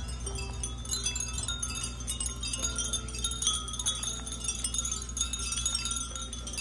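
Many glass furin wind chimes tinkling together in the breeze: a dense, continuous scatter of high, bright rings. A steady low rumble runs underneath.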